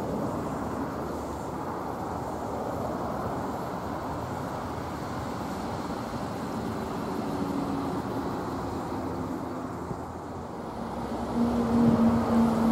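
Diesel freight train with empty log wagons running along the line, a steady rumble. About a second before the end, a louder steady diesel engine drone comes in.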